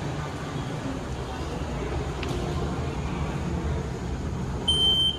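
Steady low hum of an underground station concourse, then near the end a short, high electronic beep lasting about half a second as the elevator's hall call button is pressed.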